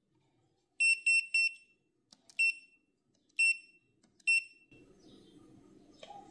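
Electronic beeper sounding short high beeps: three in quick succession, then three single beeps about a second apart.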